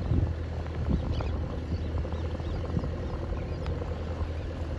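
Distant motorboat's outboard engine running steadily, a low rumble with a faint even hum. Small bird chirps come and go over it, with a couple of light clicks.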